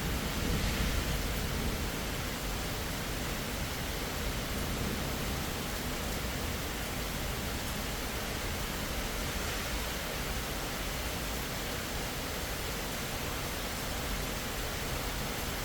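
Steady rain falling, an even hiss that runs unbroken, a little louder in the first couple of seconds.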